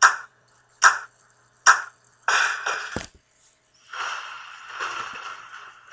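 Sound-effect clatter of hand tools and a metal toolbox: three sharp knocks about a second apart, then a short clatter and a longer clinking rattle as the tools spill out.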